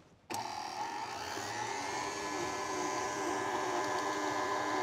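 KitchenAid stand mixer switched on about a third of a second in, its motor whining up in pitch over the next second or two as it comes up to speed, then running steadily as it beats a cream cheese mixture.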